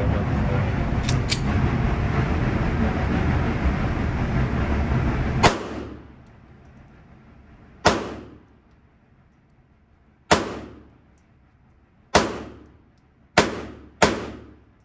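Six shots from a .380 handgun, spaced unevenly and coming faster toward the end, each followed by a short echoing decay in an indoor range lane. Before the first shot there are about five seconds of loud rustling noise with a couple of faint clicks.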